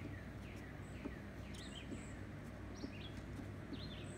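Faint birdsong: many short chirps that slide down in pitch, repeating and overlapping, with a few brief higher peeps, over a steady low hum and a few faint clicks.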